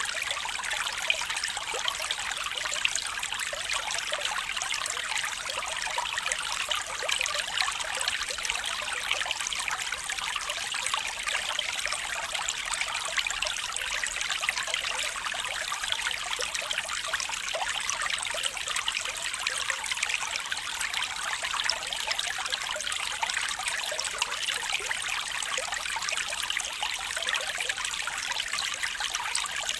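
Water flowing and trickling steadily, a continuous babbling of many small splashes.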